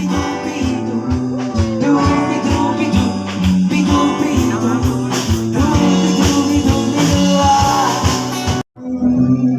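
Music: a song with guitar and a steady beat. It cuts out abruptly for a moment near the end, then comes back sounding duller.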